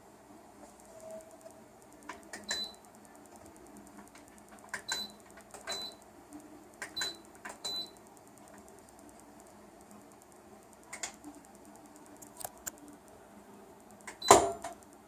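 Electrolux Eco Turbo TRW12 washing machine: a series of short clicks, several with a brief high beep, then one loud thump near the end.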